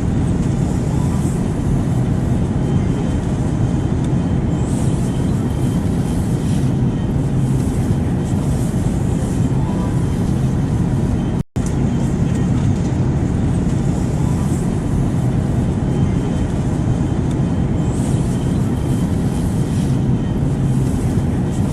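Steady airplane noise in flight: an even, low rumble and rush of engines and air. It cuts out for a split second about eleven and a half seconds in, then resumes unchanged.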